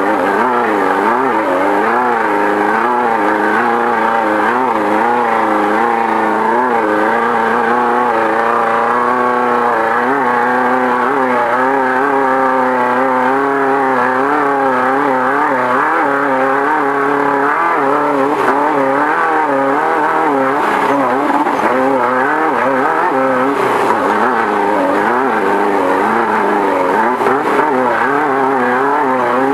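Engine of a Volkswagen Beetle desert race car running hard, heard from inside the car. Its revs rise and fall over and over, about once a second, as the throttle comes on and off.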